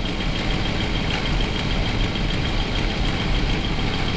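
Motorhome's gasoline engine idling steadily, heard close up through the open engine cover inside the cab, with a faint steady high whine over it. It is warmed up with the freshly rebuilt automatic transmission in it, whose fluid has just been checked at the full mark.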